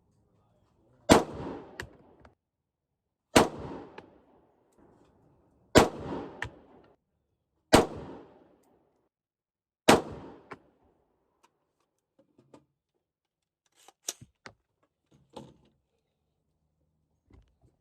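AR-15 rifle with a 16-inch barrel fired five times in slow, aimed succession, about two seconds apart, each shot ringing out briefly. A few light clicks and knocks of handling follow near the end.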